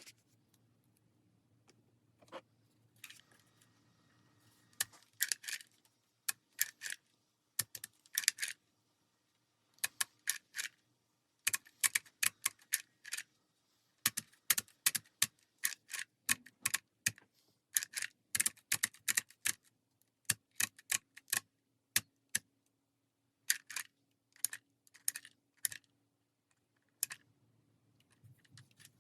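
Sharp clicks and taps in quick irregular runs, several a second, with short pauses between the runs.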